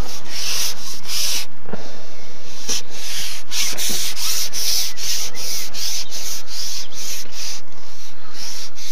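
Loud, rough rubbing or scraping noise close to the microphone, in quick irregular strokes about two or three a second.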